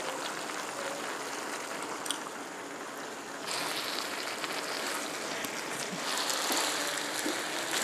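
Labra of mixed vegetables and rohu fish head sizzling and bubbling in a pan over a gas flame, a steady hiss. About three and a half seconds in it grows brighter as the mix is stirred with a wooden spatula. The dish is nearly done, with the oil separating at the sides.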